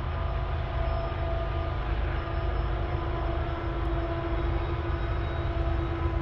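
Diesel locomotives hauling a loaded coal train up a mountain grade, heard at a distance: a steady drone with a few held, slightly wavering tones from the engines working hard under load.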